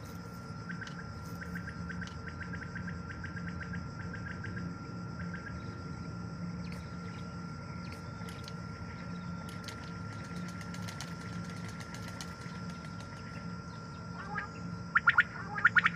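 Common quail calling: faint quick chirps in the first few seconds, then loud rapid calls about a second before the end, over a steady low hum and a thin high tone.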